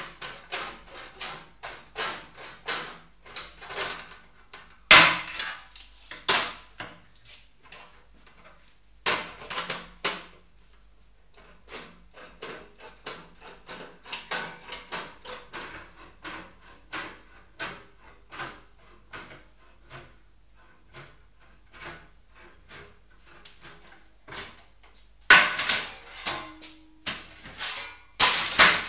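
Aviation tin snips cutting thin sheet steel, a short crisp snip with each squeeze of the handles, about two a second. A few louder metallic clatters from the sheet come in between, the loudest near the end.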